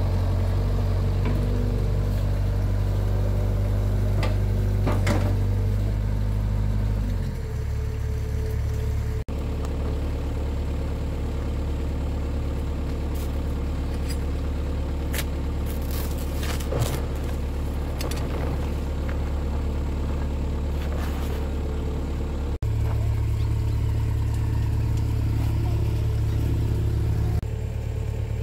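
Diesel engine of a Hitachi mini excavator running steadily, its note shifting a few times. Scattered sharp clicks and knocks ride over it.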